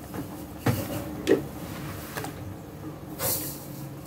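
Raw chicken pieces being put into simmering spice paste in a clay pot: a couple of soft thuds about a second in, and a brief hiss near the end.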